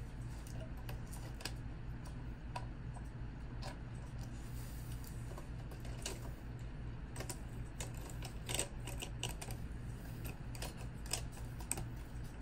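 Light clicking and rattling of the jointed track links of a Tamiya 1/16 M551 Sheridan RC tank as a run of track is handled and laid over the road wheels, with a denser cluster of clicks about two thirds of the way through. A steady low hum runs underneath.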